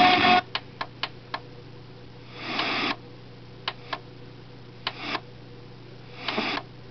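Boombox AM/FM radio being tuned: four quick clicks, then three short snatches of station audio that break in and cut off between stretches of faint hiss and a steady low hum.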